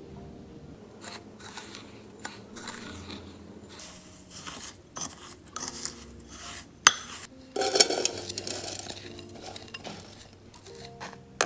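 A spatula stirs and scrapes buttery graham cracker crumbs in a glass mixing bowl, with clicks and knocks against the glass. Later the crumbs are tipped out of the bowl into a metal springform cake pan, making a gritty rustle.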